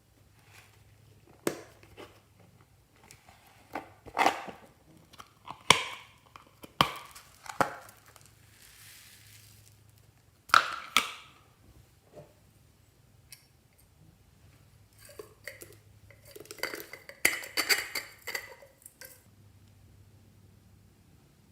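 Slime being mixed and squished, giving irregular sticky clicks, pops and crackles, with a denser run of crackling near the end.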